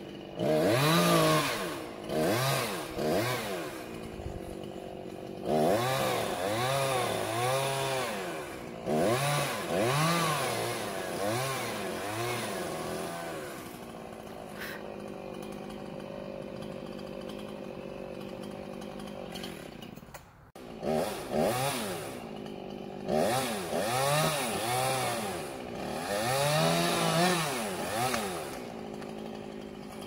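Chainsaw revved up and down again and again in short bursts, idling between them, while cutting the top out of a tall tree trunk. There is a quieter stretch of steady idling in the middle.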